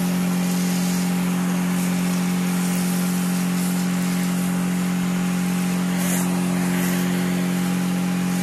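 Kärcher OC 3 portable outdoor cleaner's electric pump running with a steady hum while its trigger gun sprays a jet of water onto stone paving, with a constant hiss of spray.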